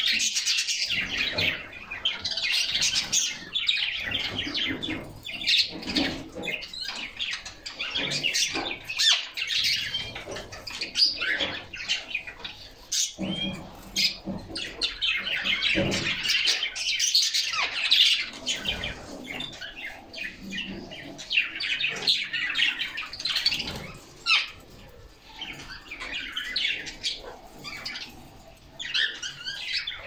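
Several caged canaries chirping and twittering over one another without a break, with a few sharp clicks scattered through.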